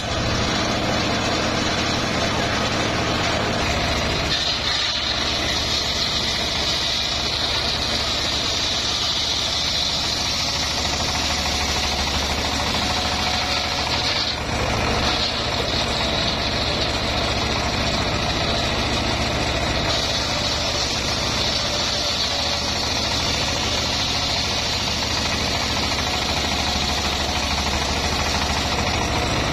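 Homemade engine-driven circular saw rig running steadily as its large blade rips hardwood planks: a high cutting whine over the engine's low drone, with a brief break about fourteen seconds in.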